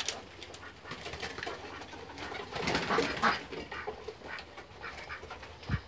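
Domestic pigeons cooing and pecking at grain while they feed, with a busier stretch around the middle and a low thump near the end.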